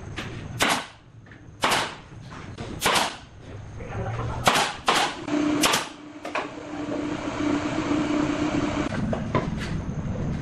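Pneumatic nail gun firing nails into wooden battens: about seven sharp shots at uneven intervals, most in the first six seconds and one near the end. A steady hum runs through the second half.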